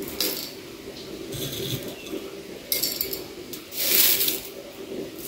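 Dry herbs and rose petals rustling and crackling as they are picked up by hand and dropped into a glass teapot, in several short bursts, the loudest about four seconds in.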